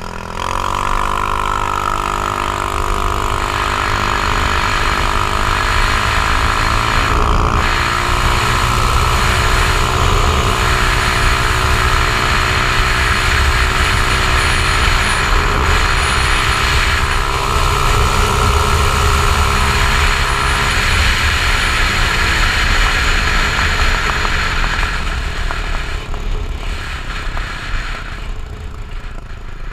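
Icebear Maddog 150cc scooter engine at wide-open throttle, with a no-rev-limit CDI fitted. Its pitch climbs over the first second or two, then holds steady at top speed under heavy wind buffeting on the microphone. The engine eases off over the last few seconds. The sound is muffled, as if heard through a closed GoPro housing.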